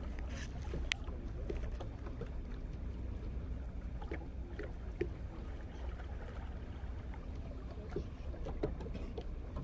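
Boat on the lake: a steady low rumble with a few faint, short knocks scattered through.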